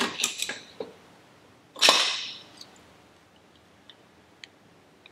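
Piston and connecting rod being pushed out of a cylinder of a stripped Evinrude 150 outboard powerhead. Light metal clicks, then one sharp knock about two seconds in, then a few faint ticks.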